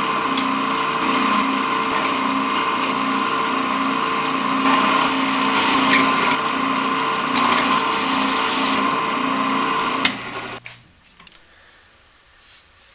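Drill press running, its bit cutting through a galvanized steel water pipe with a steady hum and a gritty cutting noise. The bit grabs at points and throws off sharp curled spirals of steel. About ten seconds in it stops with a click and the motor winds down quickly.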